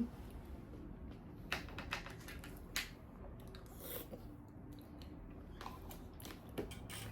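Faint chewing and eating sounds, with a handful of short, scattered clicks spread across the few seconds.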